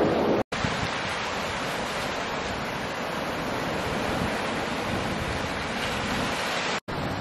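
Small ocean waves breaking and washing over a cobble beach: a steady rush of surf, broken by two short silences, about half a second in and near the end.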